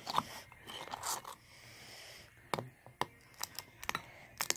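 Light clicks, taps and scrapes of a pocket knife working at a cracked raw egg and its shell.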